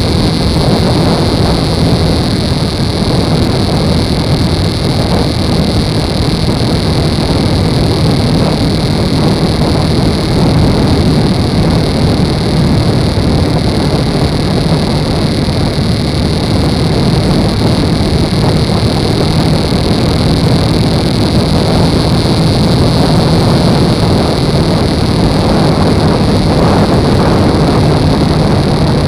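Motorcycle cruising at steady highway speed: constant wind rush over the microphone with the engine's low drone underneath, unchanging throughout.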